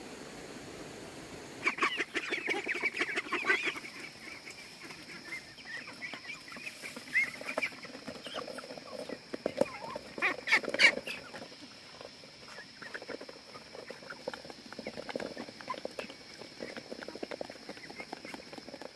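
A flock of ducks and young chickens calling as they crowd round to be fed, loudest about two seconds in and again around ten seconds.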